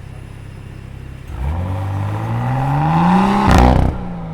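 BMW X4 M40i's turbocharged 3.0-litre inline-six and exhaust accelerating hard. After about a second of steady running the revs climb steadily, then a short sharp crack comes as the revs drop at the gear change.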